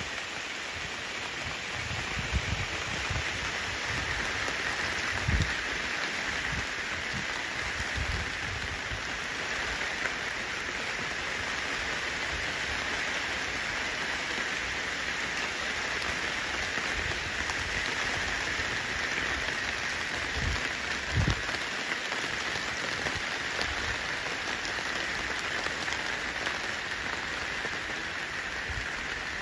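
Steady rain falling on wet pavement and puddles, an even hiss throughout, with a few brief low thumps.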